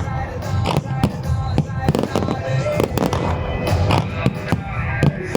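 Fireworks going off, many sharp bangs in quick succession, with music playing alongside.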